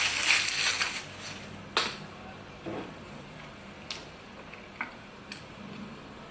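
Close-miked eating sounds: a crackly rustle for about the first second, then a few scattered soft clicks and smacks.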